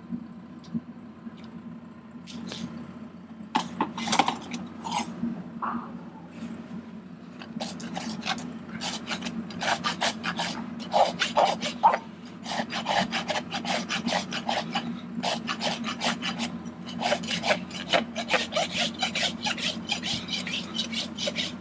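A farrier's rasp filing a horse's hoof: a few scattered scrapes, then quick rhythmic rasping strokes from a third of the way in, with short pauses between runs.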